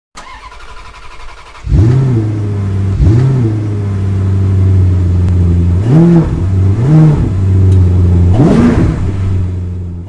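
A car engine starting and settling into idle, then revved in five quick blips of the throttle, each a short rise and fall in pitch, before fading out at the end.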